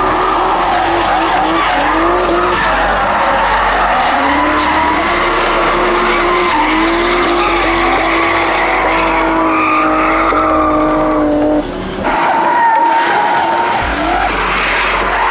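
BMW drift cars sliding sideways: engines held high in the revs, their pitch rising and falling with the throttle, over continuous tyre screech. The sound dips briefly about twelve seconds in and carries on with another car.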